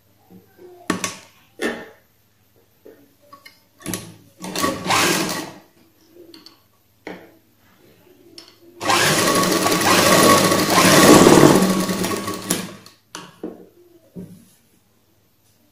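Citizen domestic sewing machine stitching a blouse's shoulder seam in one run of about four seconds. A few short clicks and a brief burst come before it.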